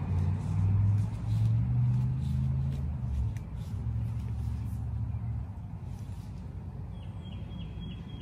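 Low engine hum with small steps in pitch, stopping about five and a half seconds in. A faint high chirping comes near the end.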